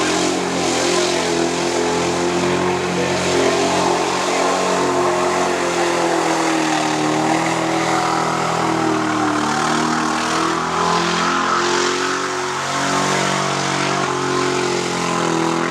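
A tuff truck's engine running continuously as it works the off-road course, its pitch wavering up and down with throttle.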